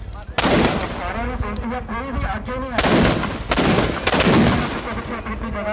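Firecrackers packed inside a burning Ravan effigy going off as a series of loud bangs: one about half a second in, then three more in quick succession around three to five seconds in.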